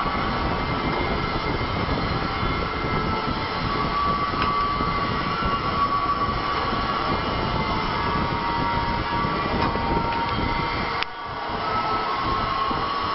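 Drum-washing machine running: a steady mechanical rumble and hiss from its circulation pump and the wash spray, with faint steady whining tones. The noise dips briefly about eleven seconds in, then carries on.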